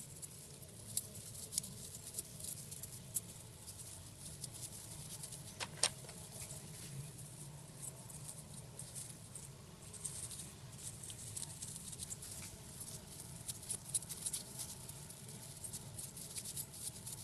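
Small plastic cup-holder parts being handled and worked on: light scratching and scattered small clicks, with one sharper click about six seconds in.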